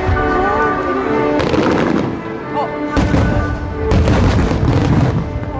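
Fireworks shells bursting in quick volleys of booms, about one and a half seconds in, again at three seconds and in a longer cluster around four to five seconds, over music playing from loudspeakers.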